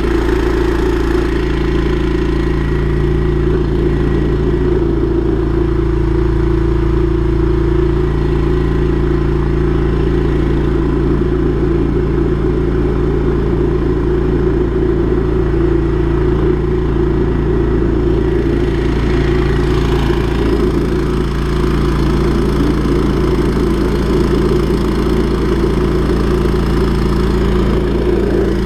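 Drain-jetting machine's engine running steadily under load, driving the high-pressure water jet; its pitch dips slightly about twenty seconds in.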